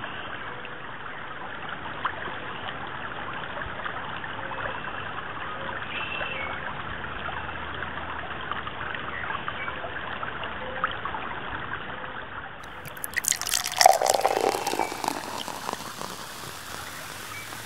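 Small creek running fast over rocks and snags, a steady rush of water. About three-quarters of the way through the sound turns brighter and a louder, uneven patch of rushing lasts a couple of seconds.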